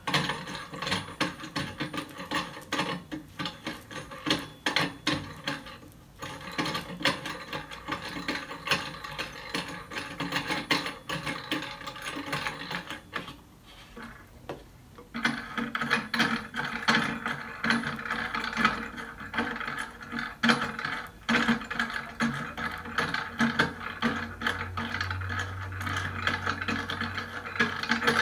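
Clamp of a desk-clamp monitor stand being screwed tight from under the desk: a long run of rapid mechanical clicking and grinding from the turning screw, with a short lull about halfway through.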